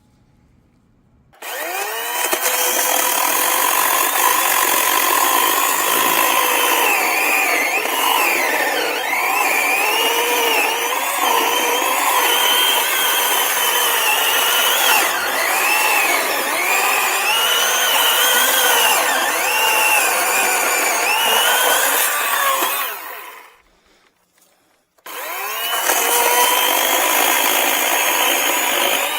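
Greenworks 80-volt battery chainsaw fitted with a carbide chain, spinning up about a second in and cutting wood, its motor pitch dipping and recovering under load. It stops for about two seconds near the end, then starts again.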